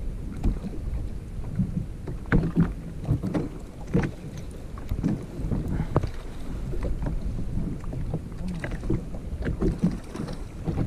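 Rough sea slapping and sloshing against the hull of a Sea-Doo Fish Pro jet ski, with wind buffeting the microphone and irregular knocks.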